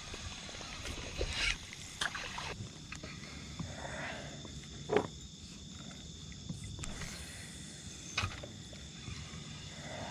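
Spinning reel being cranked on a lure retrieve from a kayak, with a few sharp knocks, the loudest about five seconds in, over a faint steady high-pitched hum.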